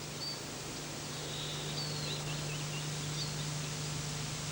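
Outdoor ambience with a few faint bird chirps scattered through, over a steady hiss and a low hum.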